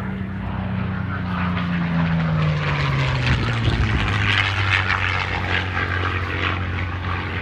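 Packard-built Merlin V-12 engines of P-51 Mustangs flying past. The engine note drops in pitch over the first few seconds as the aircraft go by, then runs steadily at the lower pitch.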